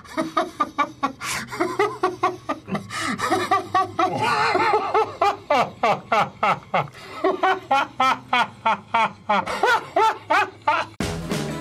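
A man laughing hard in quick repeated bursts of ha-ha-ha. Near the end the laughter cuts off and music starts suddenly.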